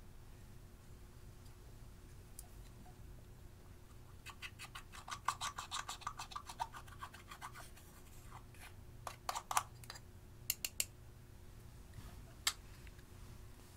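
A metal tool scraping pressed eyeshadow out of its compact in a quick run of strokes, about six a second, crumbling the powder; a few separate sharp clicks follow.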